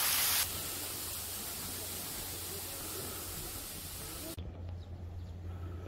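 Small waterfall spilling down a rock face, a steady hiss of falling water that drops in level about half a second in. About four seconds in it gives way to quieter outdoor ambience.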